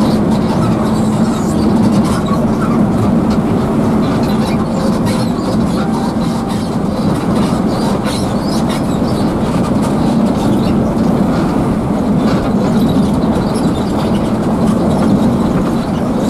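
Steady rumble inside a coach bus at highway speed: the diesel engine's drone mixed with road and tyre noise, with light rattles and clicks from the cabin.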